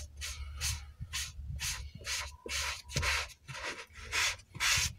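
Foam applicator pad rubbed back and forth over a leather car seat, spreading leather conditioner, in quick strokes of hiss about two a second.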